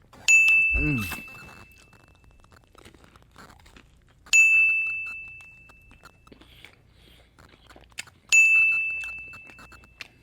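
A bright bell-like ding rings three times, about four seconds apart, each one fading away over a second or two. A short falling vocal sound comes just after the first ding.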